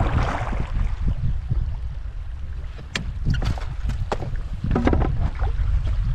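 A canoe being paddled in strong wind: wind buffets the microphone with a low rumble while water splashes and washes along the hull. Several sharp knocks sound in the middle of the stretch.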